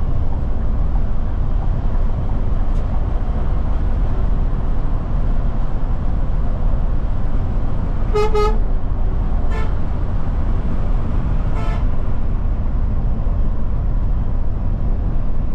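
Steady low rumble of a Scania K410 double-decker bus cruising on a highway, heard from inside the bus. A horn sounds three times while it passes another coach, the first blast a little longer than the two short toots that follow.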